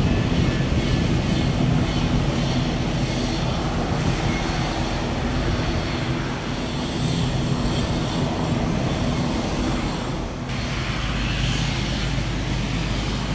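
Twin turboprop engines of an ATR 72 airliner running, a steady propeller drone with a low hum.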